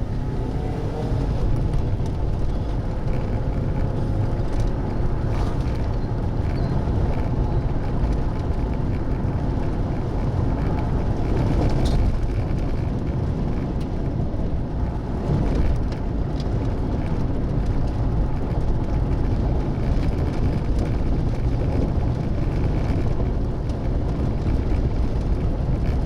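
Steady low rumble of road and engine noise from a car being driven.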